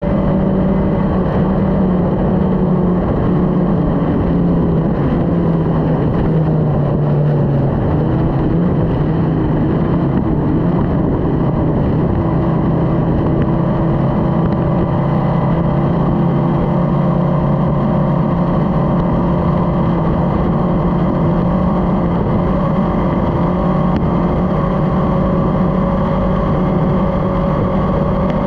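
Racing powerboat's engine running hard at full speed, with a steady high note that sags for a few seconds and then settles back. Under it is a constant rush of wind and water against the hull.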